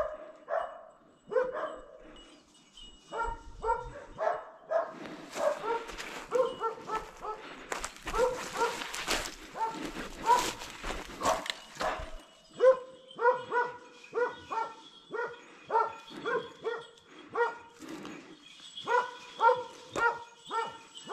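Hunting dogs barking and baying on a wild boar chase, about two barks a second, with a stretch of rustling brush in the middle.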